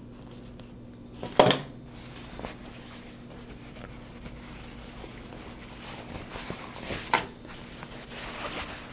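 Hands rustling and handling heavy black trouser fabric while working on the waistband, with a short sharp sound about a second and a half in and another about seven seconds in, over a faint steady hum.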